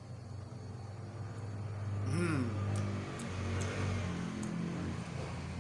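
A motor vehicle passing by, its noise swelling and fading over about three seconds, over a steady low electrical hum. A short hummed vocal sound comes about two seconds in.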